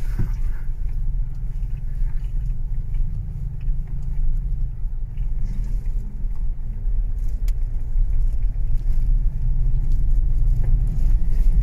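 Steady low rumble of a car's engine and tyres heard from inside the cabin while driving slowly on an unpaved road, with a faint click or two.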